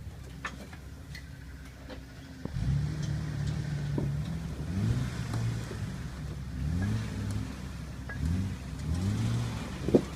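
Off-road vehicle engine running low, then picking up about two and a half seconds in and revving in repeated bursts, its pitch rising and falling several times. A sharp knock near the end.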